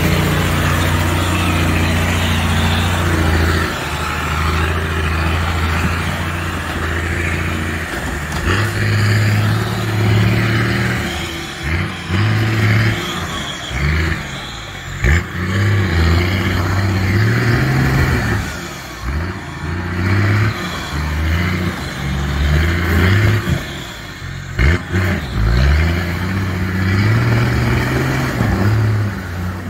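Toyota Land Cruiser HDJ80's straight-six diesel engine under load off-road. It runs steadily for the first several seconds, then revs up and drops back again and again, with a few sharp knocks along the way.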